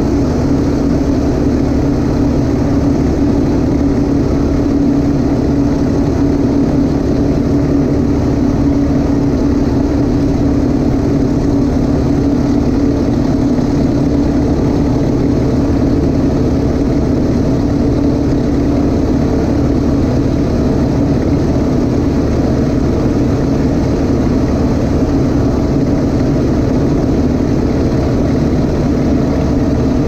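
PZL M-18B Dromader's nine-cylinder radial engine and propeller running steadily in flight, heard from inside the cockpit as a loud, even drone.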